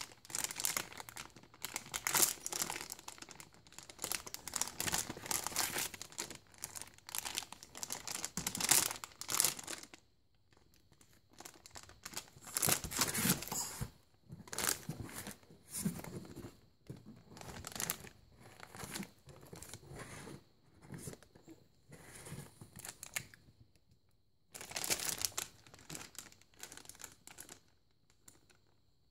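A silver foil bag crinkling and crackling as a baby grabs and waves it. It is dense and continuous for the first ten seconds, then comes in shorter irregular bursts separated by pauses of a second or two.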